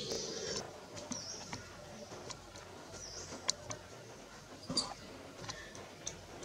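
Faint high-pitched squeaks from an infant long-tailed macaque, two short gliding chirps a couple of seconds apart, among light clicks and rustles.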